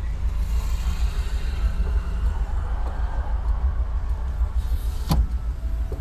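Volkswagen Kombi van driving at town speed, a steady low engine and road rumble, with one sharp click about five seconds in.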